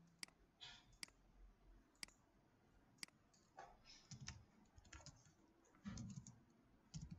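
Faint computer keyboard and mouse clicks: a few single sharp clicks about a second apart, then an uneven run of keystrokes from about halfway.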